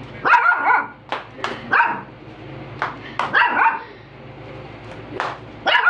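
Small long-haired puppy barking in short, high-pitched yaps, about seven of them in uneven bunches.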